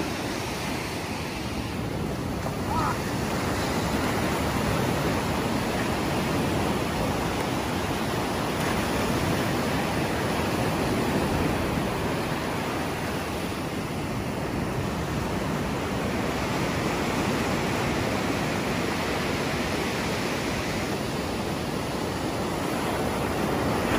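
Sea surf breaking and washing up a sandy beach: a steady rushing noise that slowly swells and eases as the waves come in.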